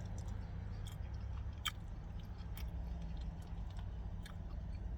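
A person chewing food, with scattered small clicks, over a steady low hum.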